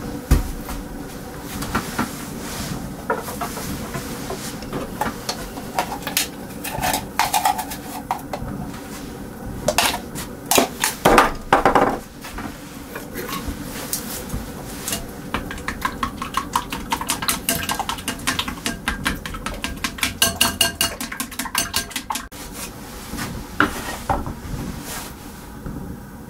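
Kitchen clatter: utensils, dishes and pans clinking and knocking, with louder clatter about ten seconds in and a run of quick, even taps, about five a second, in the second half.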